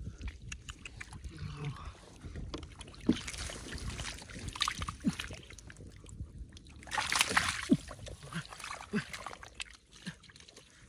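Shallow muddy water splashing and sloshing as hands and legs work through it. The water noise comes in irregular bursts with sharp slaps, loudest about three to five seconds in and again about seven seconds in.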